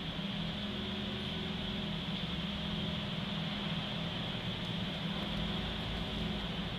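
Steady mechanical drone of a vehicle inspection bay: a low hum from idling cars and workshop machinery, with an even hiss over it, unchanging throughout.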